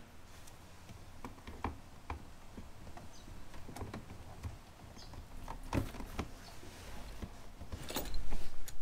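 Plastic dashboard trim panel being handled and pushed back into place: scattered light clicks and taps, with a few louder knocks about six seconds in and again near the end.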